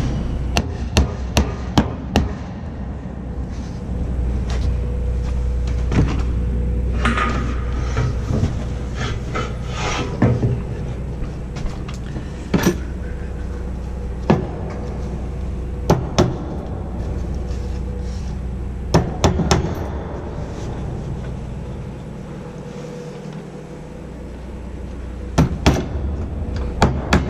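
Hammer driving nails into wooden formwork boards: irregular sharp blows, some in quick runs of two or three, with pauses of a few seconds between.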